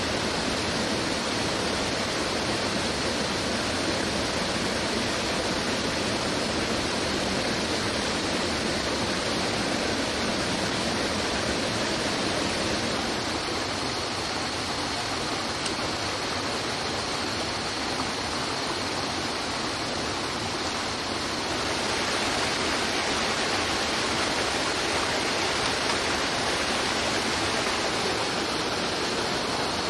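Stream water rushing steadily over rocks, changing slightly in character twice.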